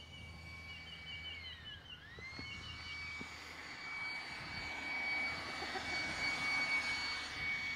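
Leaf blower running with a steady high whine; about two seconds in its pitch sags and then climbs back, and the rush of air grows louder toward the end.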